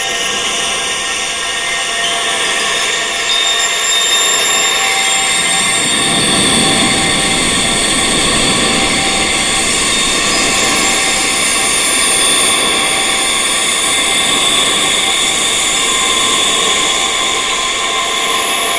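Wind chimes tuned to tinnitus frequencies, ringing continuously with many high metal tones overlapping and sustaining. A soft low rushing noise swells in around the middle and fades again.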